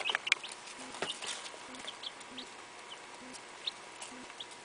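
Baby chicks peeping: short, high cheeps scattered through, with a few sharp clicks in the first moment.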